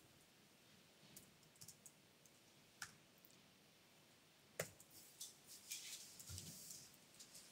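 Faint laptop keyboard keystrokes on a MacBook: a few isolated taps, then a quick run of typing from about five seconds in, over near-silent room tone.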